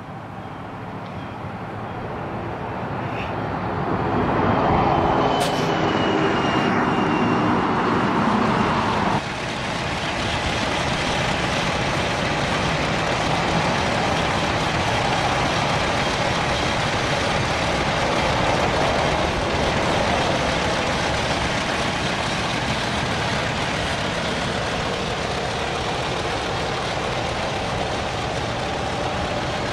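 Chevrolet Silverado's 5.3-litre Vortec V8 idling steadily. The sound swells over the first few seconds, drops suddenly about nine seconds in, then holds even.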